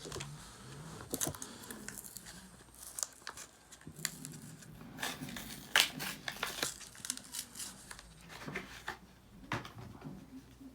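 Pokémon booster-pack wrapper crinkling and tearing as it is handled and opened, in irregular crackles with a sharper snap about six seconds in.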